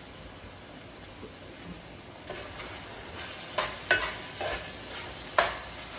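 A metal spoon stirs and scrapes ground beef browning in a deep pan, knocking against the pan several times with sharp clacks, over a steady sizzle of the frying meat.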